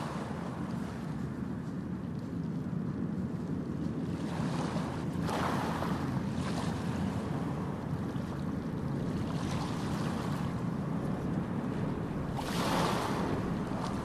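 Sea waves splashing and wind on the microphone over a steady low rumble, with louder surges of splashing about five seconds in and again near the end.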